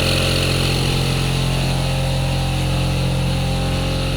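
Homemade battery-powered weed trimmer running steadily: an even, loud hum with a hiss above it that sounds like a school bus.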